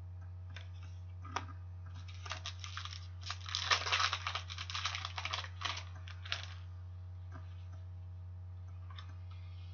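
Hockey trading cards being handled and shuffled through by hand: a patter of soft card clicks and rustles starting about two seconds in and dying away after about six, over a steady low hum.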